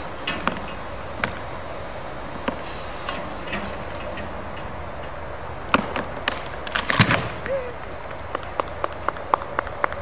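A notched pine trunk being pushed over by hand: the wood cracks and snaps at the hinge, ending in a heavy thud as the trunk hits the ground about seven seconds in, followed by a short run of light clicks.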